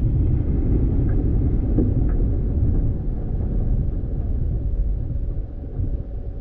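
A vehicle driving on a dirt road: a steady low rumble of engine and tyres, with a few faint knocks in the first couple of seconds. It eases off a little about halfway through.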